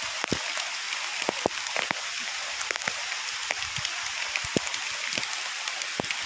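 Heavy rain falling steadily, an even hiss with many separate drop strikes standing out through it.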